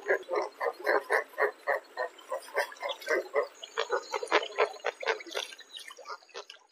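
Roseate spoonbill giving a rapid series of low grunting calls, about four or five a second, that fade and turn irregular near the end.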